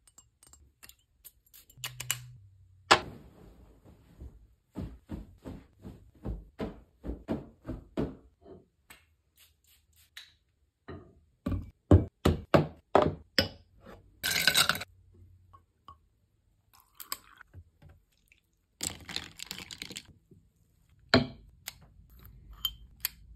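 Close-up handling of glass bottles on a hard tabletop: a series of clicks, taps and knocks as the bottles and their caps are handled and set down, with a short burst of hiss partway through, a longer hiss later and a sharp knock near the end.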